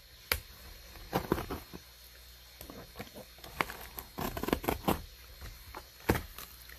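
Cardboard shipping box being opened by hand: irregular scrapes, rustles and sharp knocks as the tape and flaps are worked, busiest about four to five seconds in.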